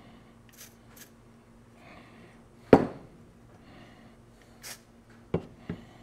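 WD-40 aerosol can sprayed in short hissing bursts, twice early on and once more near the end, lubricating a door hinge pin and hinge. A single sharp knock on the workbench about three seconds in is the loudest sound, and two light clicks come near the end.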